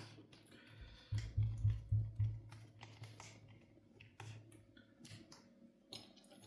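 Plastic clicks and light knocks from a laptop's case and parts being handled during reassembly, with a quick run of low thumps between about one and two seconds in.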